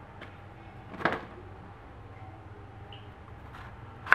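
Kitchen knife cutting through winter melon and knocking on a wooden cutting board: one knock about a second in and a louder one at the very end, with a few faint ticks between.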